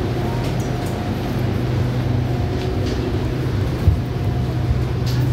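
Steady low hum inside an electric commuter train car, the SRT Red Line, standing or moving slowly, with a soft knock about four seconds in.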